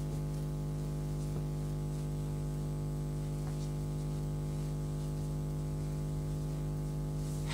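Steady low hum throughout, with a few faint, brief rustles of a crocheted cotton scarf being handled.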